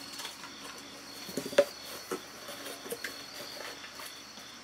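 Handling sounds from items being set down and picked up: a few light knocks and clicks, the sharpest about a second and a half in, with a soft rustle just before it. A faint steady high-pitched hum runs underneath.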